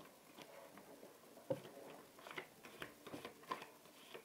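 Faint taps and flicks of playing cards being handled, with a sharper click about a second and a half in and a few more in the second half.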